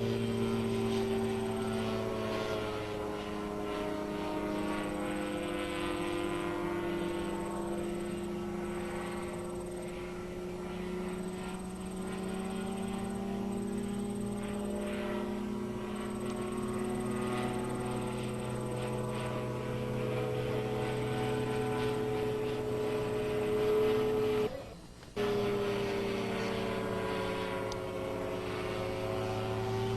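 Titan Tornado light propeller aircraft flying overhead, its engine note slowly rising and falling in pitch as it manoeuvres. The sound drops out briefly about five seconds before the end.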